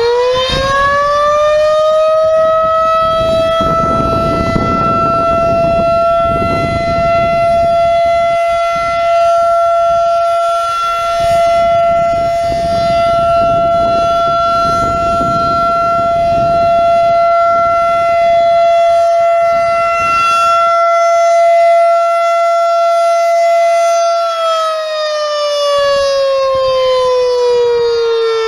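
Federal Signal 2001-DC rotating electromechanical warning siren at full speed, sounding one steady high wail during a siren test, swelling and fading slightly as the horn rotates. Near the end it winds down, its pitch falling steadily.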